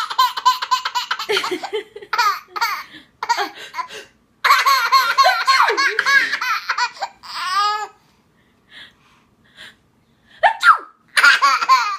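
A baby laughing at sneezes in repeated fits of rapid, high-pitched giggles. There are several bouts with short breaks, a lull of about two seconds past the middle, then two more quick bursts of laughter near the end.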